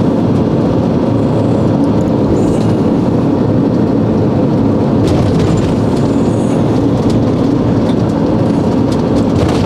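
A motorhome driving along a road: a steady low rumble of engine and tyres on the tarmac.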